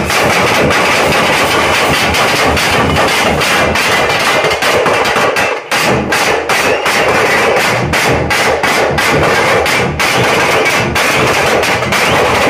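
A drum troupe beating strapped side drums and bass drums with sticks together, a loud, fast, dense rhythm of strokes, with a momentary break about five and a half seconds in.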